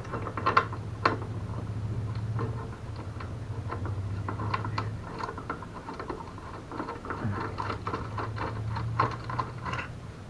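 Irregular metallic clicks and ticks of hand tools working the bolts of a mobility scooter's front bumper, over a low steady hum that drops out for a couple of seconds around the middle.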